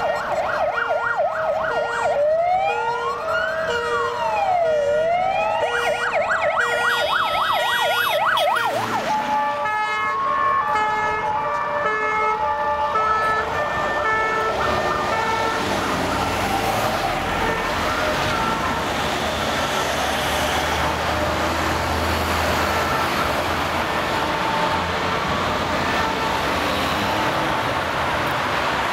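Ambulance siren alternating a fast warbling yelp with a slow rising-and-falling wail, close by. About nine seconds in it drops lower in pitch and fades away over the next several seconds, leaving steady road traffic noise.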